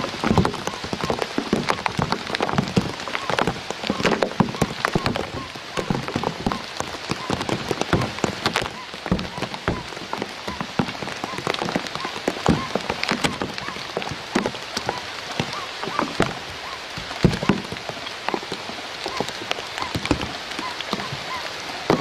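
Rain falling on reeds and leaves: a steady hiss with many close, irregular drop hits.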